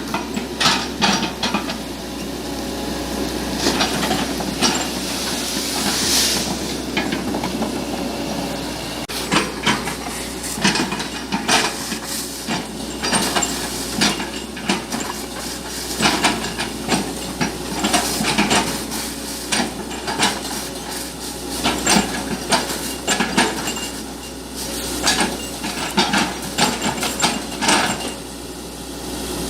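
Heavy machinery running steadily, with many sharp knocks and cracks and a burst of hiss about six seconds in.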